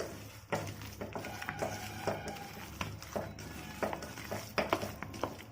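Spoon scraping and clicking irregularly against a bowl while stirring grated coconut into mashed plantain, over a steady low hum.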